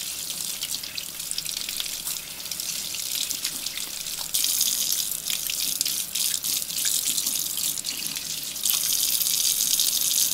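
Kitchen tap running into a sink, splashing as a small brush is scrubbed through a lantern part under the stream. The water gets louder about four seconds in and again near the end.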